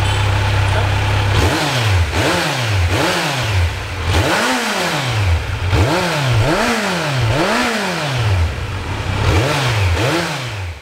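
Kawasaki Z900's 948 cc inline-four engine heard at its stock exhaust, idling steadily and then blipped about ten times in quick succession. Each blip sends the revs up and lets them fall straight back to idle.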